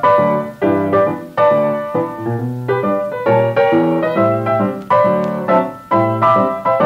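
Background piano music, chords struck in a steady rhythm, each fading before the next.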